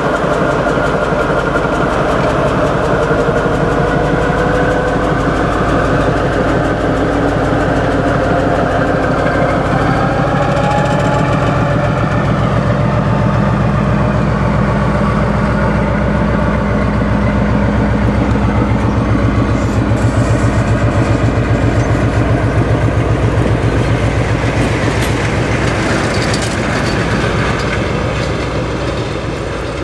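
Diesel engine of a Ganz-MÁVAG D1 diesel multiple unit pulling away from a stop, its throb building and growing louder past the middle, then easing slightly near the end as the train moves past.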